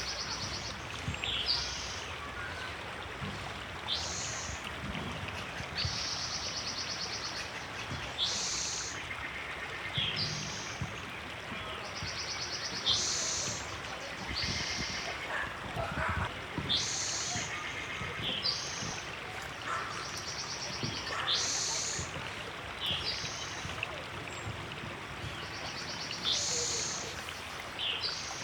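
River water flowing steadily, with a bird calling over it again and again: short, high notes that fall in pitch, and every few seconds a buzzy trill about a second long.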